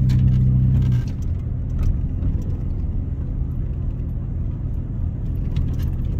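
Car driving, heard from inside the cabin: a steady engine hum drops away about a second in, leaving a low, even road rumble.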